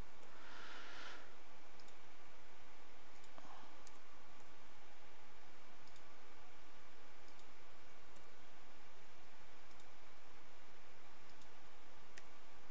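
A few faint computer mouse clicks over a steady background hiss, with a short soft rustle about half a second in.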